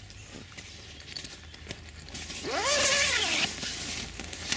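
Tent door zipper pulled in one long stroke about halfway through, a rasping buzz whose pitch rises and then falls as the pull speeds up and slows, with light handling ticks before it.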